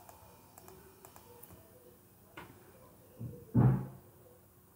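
Quiet room tone with a few faint clicks, and one short low vocal sound from the speaker about three and a half seconds in.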